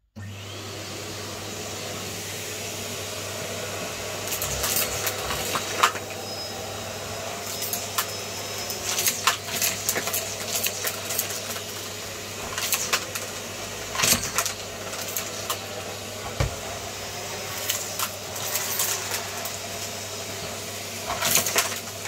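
Numatic James tub vacuum cleaner switched on, its motor starting abruptly and then running with a steady hum. From about four seconds in, frequent sharp clicks and rattles break over the hum as the floor tool works the floor.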